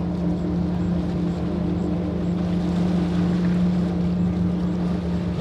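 Motorboat engines running at a steady speed: a constant low hum over an even hiss.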